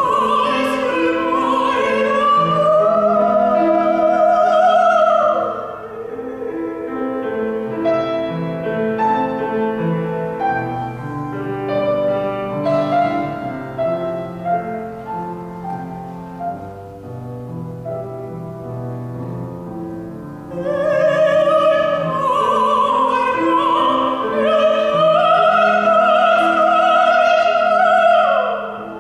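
Operatic soprano singing an aria with strong vibrato, accompanied by a Kawai grand piano. About six seconds in the voice stops and the piano plays alone, and the voice comes back about twenty seconds in.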